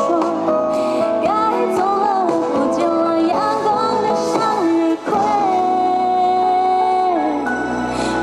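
Live pop song played over a stadium PA: a woman sings a slow melody over backing music, holding one long note about halfway through.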